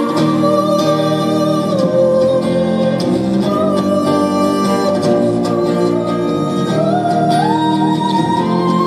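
Live acoustic band music: strummed acoustic guitar and electric bass with a woman's voice holding long wordless sung notes, which climb in pitch near the end.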